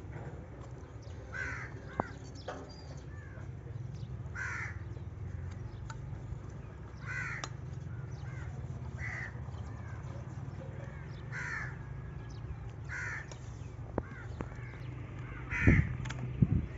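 Crow cawing repeatedly, seven short calls spaced two to three seconds apart, over a steady low hum. A sharp knock about two seconds in and two heavier thumps near the end, the loudest sounds here.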